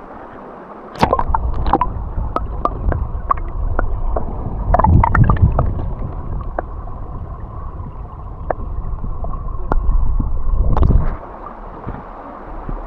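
Stream water running, overlaid from about a second in until about eleven seconds by a heavy low rumble on the microphone and many sharp clicks and knocks, like wind buffeting and handling noise.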